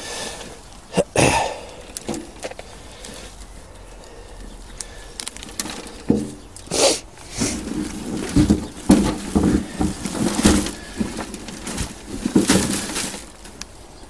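Potting compost being broken apart and rummaged through by hand for potatoes: irregular crunching and rustling, busiest in the second half.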